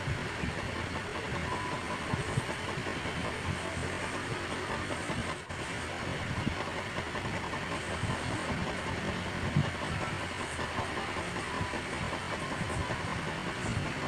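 Steady rushing background noise with no distinct events. It dips briefly about five and a half seconds in.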